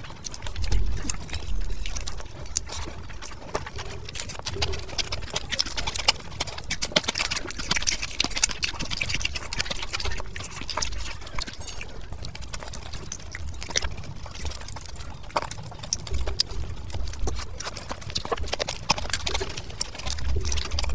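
Close-miked eating sounds: chewing and lip smacking on fish biryani rice and fried fish, heard as a dense run of small clicks.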